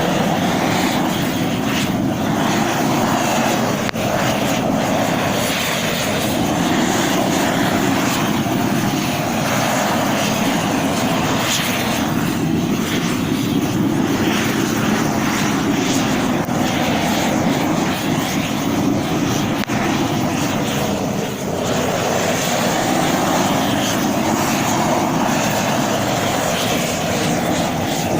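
Propane roofing torch burning steadily while torch-on bitumen roll roofing is heated and fused down, its rushing flame noise swelling and easing slightly as the torch is swept.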